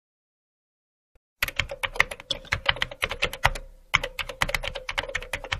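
Computer keyboard typing: a fast run of keystroke clicks starting about a second and a half in, with a brief pause in the middle.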